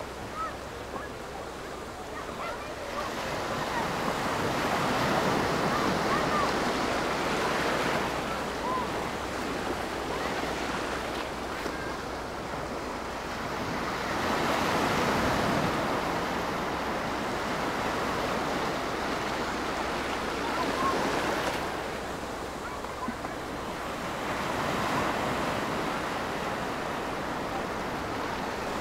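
Sea surf: waves rushing in and drawing back, the rush swelling and fading every several seconds.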